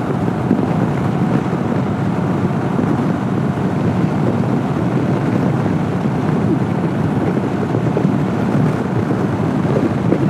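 Honda CB500X parallel-twin motorcycle running at highway speed, with a steady rush of wind on the microphone.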